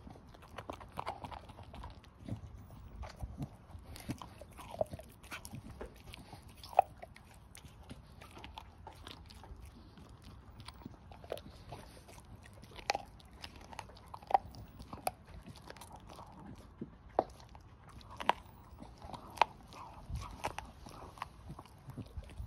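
Staffordshire bull terrier chewing a raw pork trotter: continuous gnawing broken by sharp, irregular crunches as its teeth work on the bone and skin.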